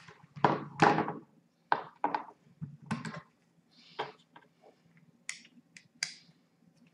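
Small parts being handled on a tabletop while the grip panel comes off a Swiss Model 1882 revolver's frame: an irregular string of light taps, clicks and knocks.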